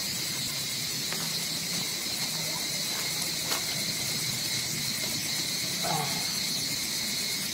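Steady high-pitched drone of an insect chorus, running on without a break, with a few faint clicks.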